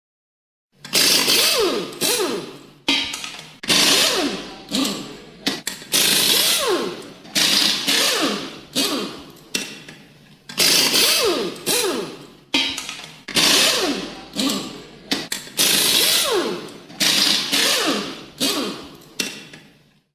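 Power tool run in a string of short bursts, roughly one a second, each starting suddenly and winding down with a falling pitch as it is let off.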